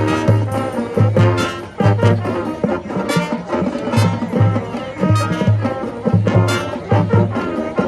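High school marching band playing: brass section (trumpets and trombones) carrying the tune over a steady beat of bass drums and cymbal crashes.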